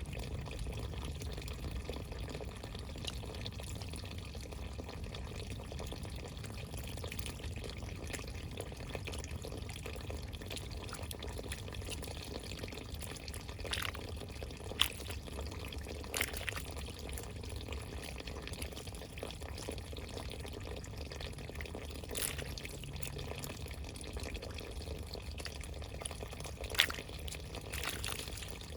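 Steady running water with a few sharp drips standing out over it, the two clearest about halfway through and near the end.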